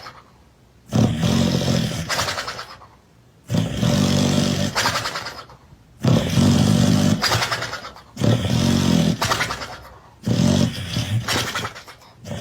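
A sleeping dog snoring loudly, five long rasping snores at a slow, even breathing rhythm, like an engine cranking that will not catch.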